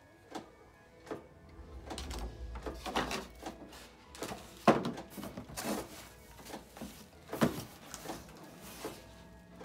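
Cardboard box and plastic filter parts being handled: scattered rustles, scrapes and light knocks, with the sharpest knock about four and a half seconds in and another about seven and a half seconds in.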